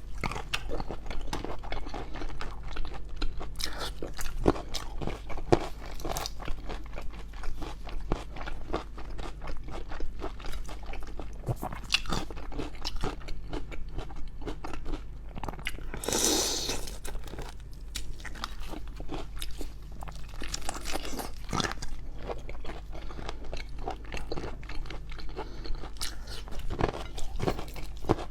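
Close-miked mouth sounds of eating shrimp: irregular crunching, biting and wet chewing. About halfway through there is one longer, louder noisy sound lasting about a second.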